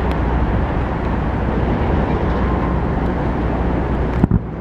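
Steady outdoor rumble and hiss with strong low-end noise, then a single firework burst landing as a thud near the end.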